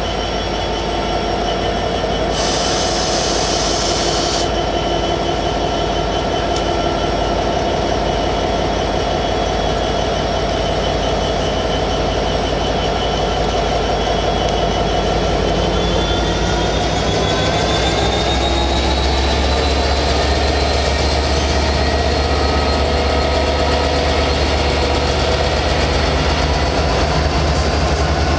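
NYSW diesel-electric locomotives revving as the train departs, a steady engine drone with a high whine that rises in pitch about halfway through while the deep rumble grows louder. A brief hiss lasts about two seconds near the start.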